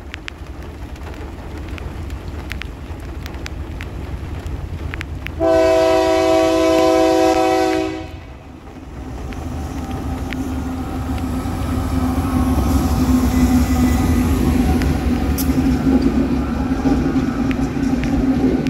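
GE AC44i diesel-electric freight locomotives approaching and passing. One long horn blast comes about five seconds in and lasts about two and a half seconds. After it, the locomotives' diesel engines drone steadily and grow louder as they go by, with wheel clicks over the rail joints.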